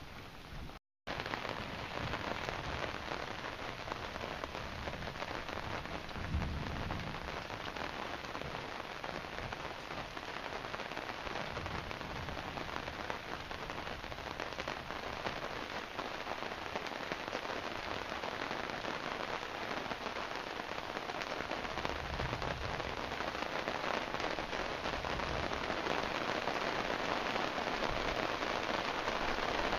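Heavy rain falling steadily, growing a little louder toward the end, with low rumbles of thunder about six seconds in and again past twenty seconds. The sound cuts out for a moment about a second in.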